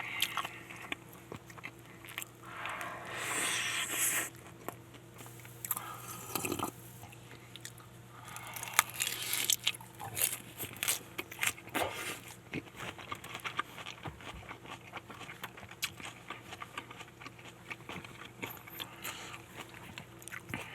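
Close-miked eating of a crispy fried chicken thigh burger: crunchy bites and chewing, with many sharp crackles and a few longer crunching stretches, over a faint steady hum.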